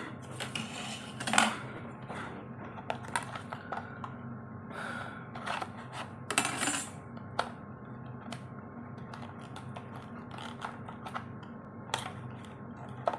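A drive's packaging being opened and handled: a string of light clicks and taps with a few short rustles.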